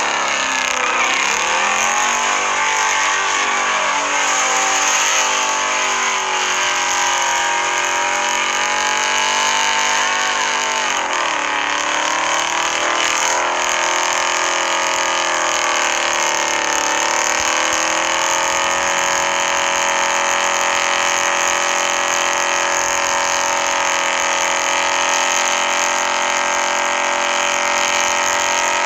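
Truck engine revving hard and held at high revs during a burnout, its pitch dipping and climbing back three times.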